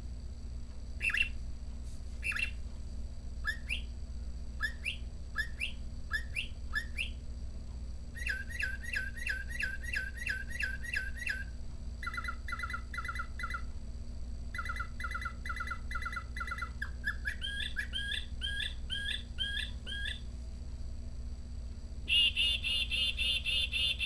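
Quartz singing bird clock playing its recorded northern mockingbird song through a small speaker, at a lower pitch and speed than the real bird. It is a long run of varied phrases, each repeated several times before switching to another. About two seconds before the end, a louder, fast-repeated black-capped chickadee call begins.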